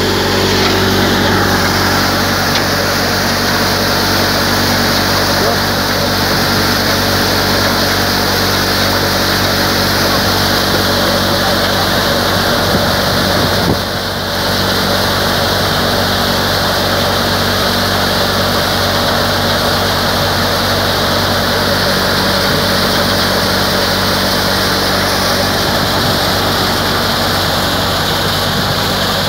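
Tractor-driven multicrop thresher running steadily: the tractor engine and the spinning threshing drum and fans make one loud, even mechanical drone with a constant hum beneath it.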